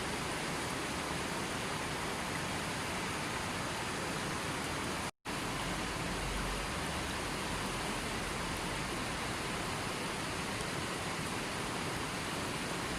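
River water flowing steadily, an even hiss of running water with no other events. It cuts out to silence for a split second about five seconds in, then carries on unchanged.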